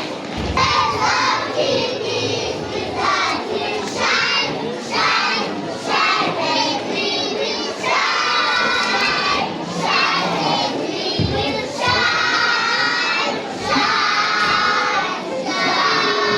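A crowd of children shouting and cheering together, many high voices overlapping in repeated long calls.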